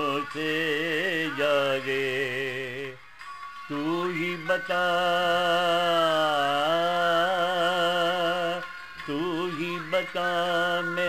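A wordless, gliding vocal melody with vibrato over a steady harmonium drone, in Hindustani light-classical style. It breaks off briefly about three seconds in and again near nine seconds.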